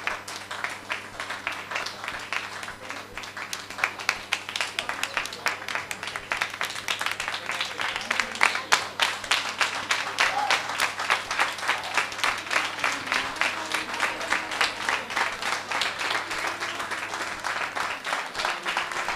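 Audience applauding, many hands clapping, with some voices among it. A steady low hum runs underneath and stops near the end.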